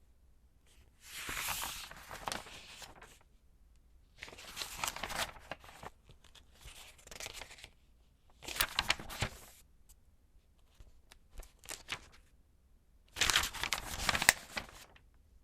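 Glossy magazine pages being turned one at a time: about five separate papery rustles and flips, each lasting a second or two, with short pauses between them.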